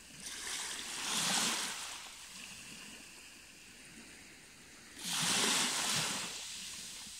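Small waves washing over shoreline rocks: two swells of rushing water, about a second in and again about five seconds in, over a steady low wash.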